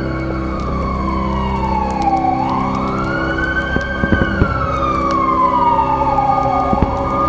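A siren wailing in a slow fall and rise, sinking twice and climbing back between, over a steady low drone.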